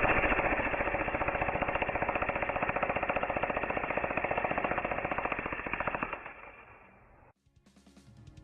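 Jackhammer hammering in a rapid, even rattle, fading out and stopping about seven seconds in. Music begins near the end.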